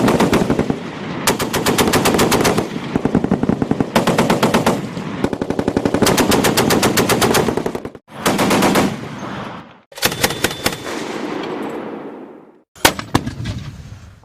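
Automatic machine-gun fire: long bursts of rapid shots in quick succession, in several stretches broken by short gaps, with a single sharp louder shot near the end.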